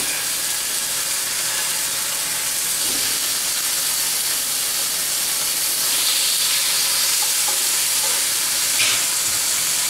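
Sirloin steaks sizzling in olive oil in a blazing-hot cast iron skillet, a loud, steady hiss that starts suddenly as the first steak hits the pan and carries on as the others go in.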